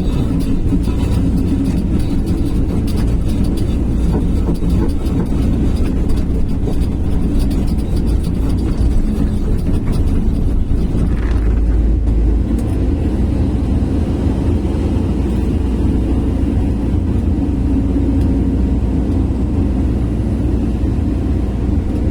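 Sany SY215C excavator's diesel engine running with a steady low rumble.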